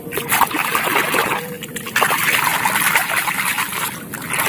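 Water sloshing and splashing as a plastic toy crocodile is swished back and forth by hand in a shallow muddy puddle to wash it. The splashing comes in bouts, pausing briefly about two seconds in and again near the end.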